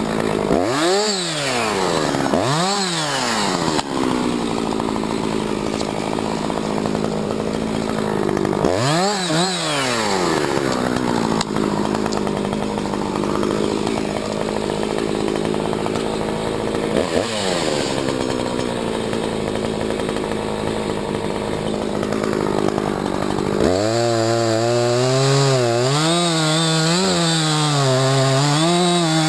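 Husqvarna 357XP two-stroke chainsaw idling, revved briefly four times, then held at high revs for the last few seconds, its pitch wavering under load as it cuts into wood.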